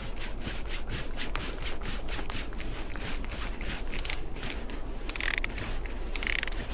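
Hand ratchet clicking in quick, uneven strokes, with a couple of brief metal scrapes about five to six seconds in, as the screw holding a new exhaust anode on an outboard motor is tightened down.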